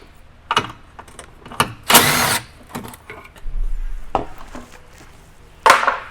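A handheld power tool runs in short bursts, about two seconds in and again near the end, backing out the 10 mm fasteners of a small undercover beneath the car. Light clicks and knocks come between the bursts.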